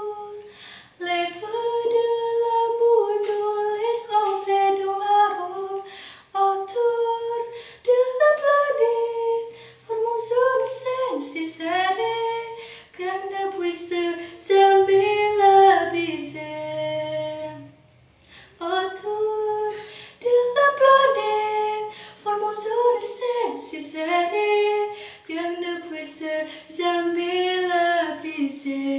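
A teenage girl singing solo in French, one voice in long sung phrases with held notes and short breaths between them.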